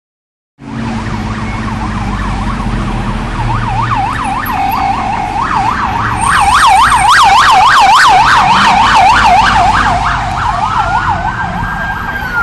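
Police car sirens in a fast yelp: rapid up-and-down sweeps, about three a second, that grow louder toward the middle. Near the end they switch to a slow rising wail that holds high. The vehicles are responding code 3, with lights and sirens, and traffic rumbles underneath.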